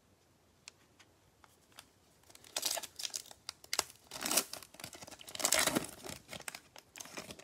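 A Prizm basketball trading card pack's wrapper being torn open and crinkled by gloved hands. After a quiet start, tearing and crinkling begins about two and a half seconds in and runs for about four seconds.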